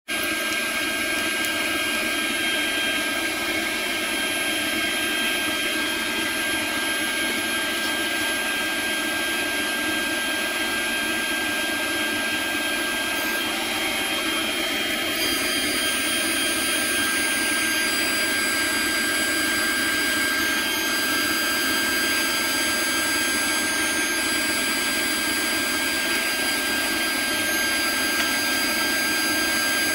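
Robotseed CNC router's spindle driving a small end mill through Delrin: a steady high whine over continuous cutting noise, with a few extra high tones joining about halfway through.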